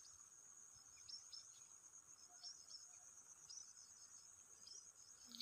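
Near silence with a faint, steady high-pitched insect trilling, like crickets, and scattered short high chirps.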